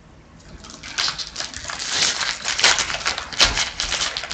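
Trading cards and their packaging being handled, with dense crinkling and flicking starting about a second in.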